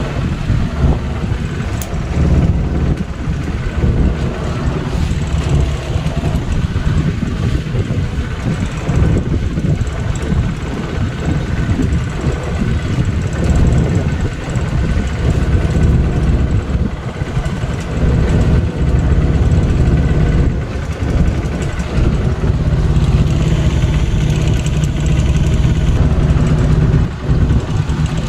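A motorboat's engine running steadily as the boat cruises across the lake, a continuous low rumble.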